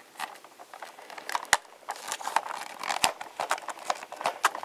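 Hard plastic parts of a Hasbro G.I. Joe Night Raven toy jet being handled and pressed into place by hand: irregular small clicks and rattles, with two sharper snaps about a second and a half apart.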